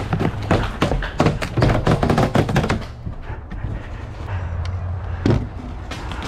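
Rapid, irregular footsteps and knocks on wooden stairs and a wooden plank floor, loudest in the first three seconds, then quieter with a single thump about five seconds in.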